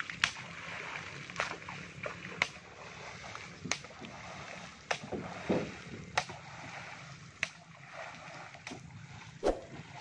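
A man beating the surface of shallow water, a sharp slap and splash about once a second, to drive tilapia into a net. Water lapping underneath.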